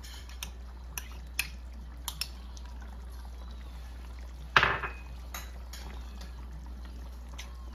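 Metal spoon clinking against a bowl and wok as liver spread is scraped into the pan, a few light clicks and then one louder knock about halfway, over a steady low hum.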